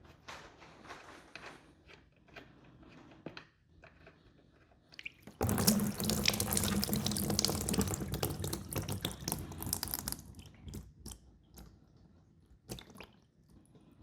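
Old oil gushing out of the outboard's drain into a catch pan, starting suddenly about five seconds in and running loud for about four to five seconds before tapering off, with small handling clicks before and after.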